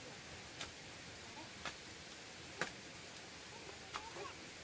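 A faint series of sharp clicks, about one a second, with a few short, faint chirps among them.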